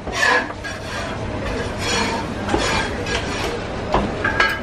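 Steady background rumble with faint voices, and two sharp metal clinks near the end as steel meat hooks strike the metal hanging rail.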